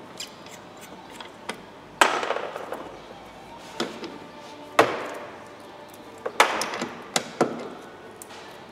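Sharp knocks and clunks of hand tools and parts being handled in a car's engine bay, about seven in all, the loudest about two seconds in and a cluster near the end, some trailing off briefly.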